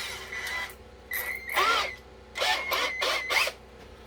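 Electric drill with a 3/8-inch bit boring into a wooden board, run in three short bursts, each with a steady high motor whine.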